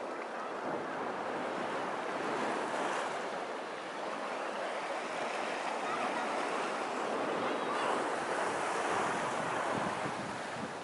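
Small sea waves washing onto a sandy beach: a steady surf wash that swells and eases as the waves come in.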